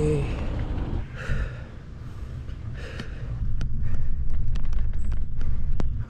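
A cyclist's heavy breathing on an uphill climb over a low rumble of wind on the microphone. From about halfway, a run of light ticks, several a second: gum with stones stuck to the bicycle tyre catching on the mudguard.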